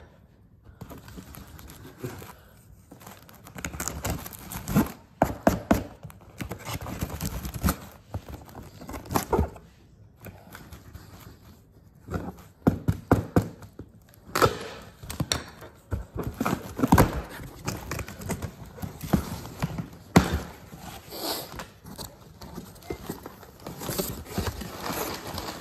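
A package being handled and opened by hand: irregular knocks and taps with rustling of cardboard and packing material.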